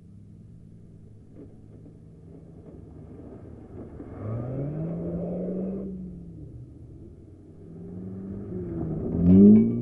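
Stripped-out hatchback race cars' engines revving as they pass close by. One sweeps past about four seconds in, its pitch rising and then falling away, and a second, louder one comes past near the end.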